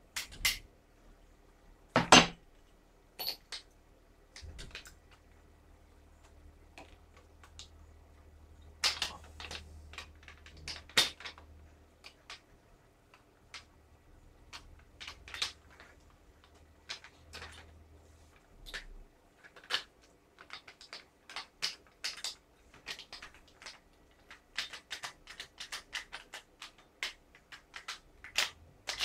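Small parts of a WE M4 gas blowback airsoft rifle clicking and knocking as they are handled and fitted together during assembly, with a louder knock about two seconds in. The clicks come quicker and closer together from about twenty seconds in.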